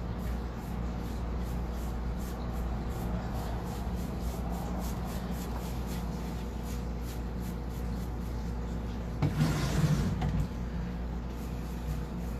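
Steady low room hum with faint scuffing and rubbing noises, and a brief louder rustling scrape about nine seconds in.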